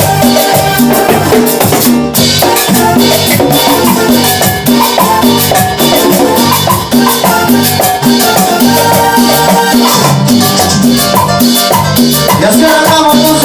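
Instrumental salsa music with a dense percussion section keeping a steady, driving rhythm under pitched instrument lines.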